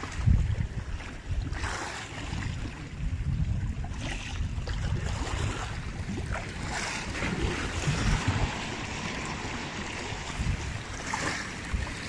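Big sea waves washing against the rocks, with wind rumbling on the phone's microphone; the surf surges and hisses every couple of seconds.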